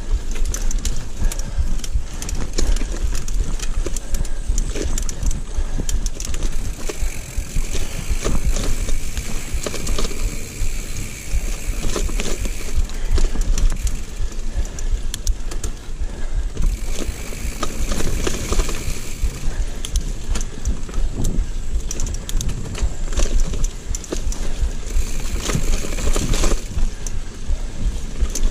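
Giant mountain bike ridden fast over roots and rocks: a steady low rumble with frequent clattering knocks as the bike bounces, and a higher hiss that comes and goes several times.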